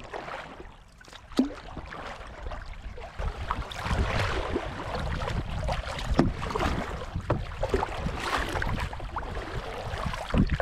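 Kayak paddles dipping and splashing in the water, with irregular drips and splashes that grow busier about a third of the way in, over a low rumble.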